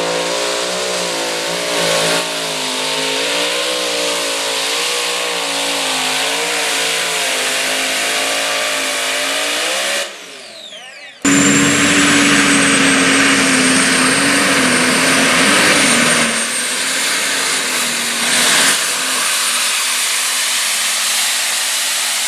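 A multi-engine modified pulling tractor running at full power under load, its engine note wavering up and down. After a sudden cut about ten seconds in, a turbocharged diesel pro stock tractor pulls at full throttle, with a high turbo whistle that rises slowly over its steady engine note.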